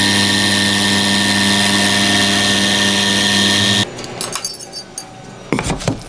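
CNC router spindle running steadily as its bit cuts an MDF speaker adapter ring, then cutting off abruptly about four seconds in. Faint clicks and a short clatter of the cut pieces being handled on the machine bed follow.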